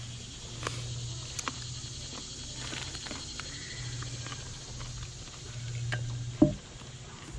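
Chewing food close to the microphone, with scattered small clicks over a low steady hum, and one sharp thump about six and a half seconds in.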